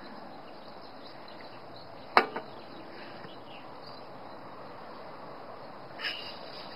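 Steady wind noise on the microphone, with a single sharp click about two seconds in and a short breathy rush near the end.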